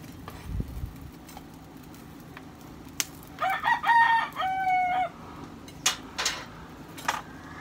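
A rooster crowing once, a multi-part cock-a-doodle-doo about three seconds in that lasts nearly two seconds. A few sharp clicks come before and after it.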